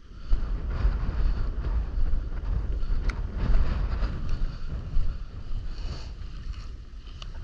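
Wind buffeting the microphone: a loud, uneven low rumble that rises and falls in gusts.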